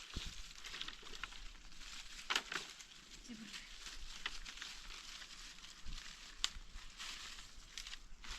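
Irregular rustling and crackling, broken by scattered small sharp clicks, like dry material being handled or stepped on.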